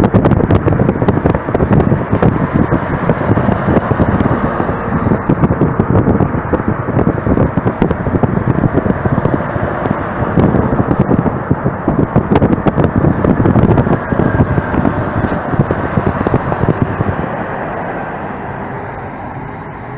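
Wind buffeting the microphone over road and engine noise, recorded from a vehicle travelling at speed beside a convoy of trucks, with a truck running close alongside. The noise eases off over the last few seconds.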